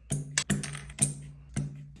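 Stock keycaps being pulled off a Keychron K6 mechanical keyboard's Gateron Brown switches: sharp, irregular plastic clicks, about three or four a second, over background music.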